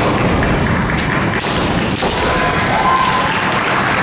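Kendo bout: fencers stamping on a wooden floor and bamboo shinai striking, with a sharp crack about a second and a half in. A fencer gives a long, high kiai shout about two seconds in.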